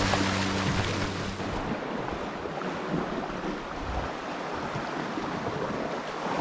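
Gentle sea waves washing against rocks, a soft steady surf sound. A low steady hum, like a motor, stops about a second in.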